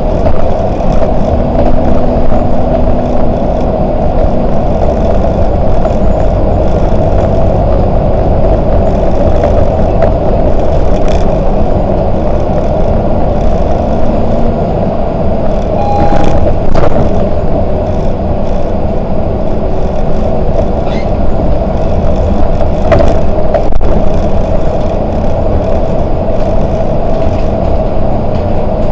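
Volvo 8900LE three-axle city bus under way, its engine and road noise running steadily. A few brief clicks and rattles come through.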